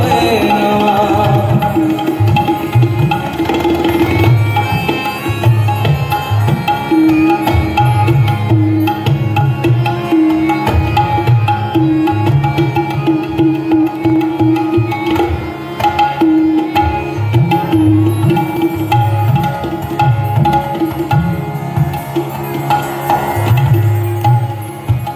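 Harmonium and tabla playing an instrumental passage. The harmonium plays a melody over held notes while the tabla keeps a steady accompanying rhythm, its low bass-drum strokes prominent.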